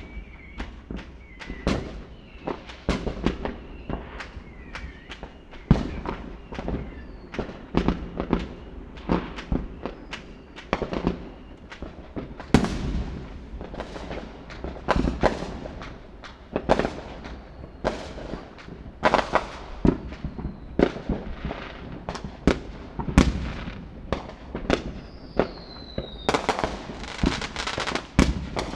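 A fireworks display: many irregular bangs and crackles of exploding shells, several a second, a few with faint falling whistles, over a continuous low rumble.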